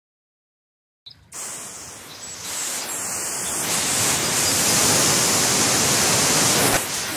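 About a second of dead silence, then a steady rushing hiss fades in and builds up, holding at full level from about four seconds in.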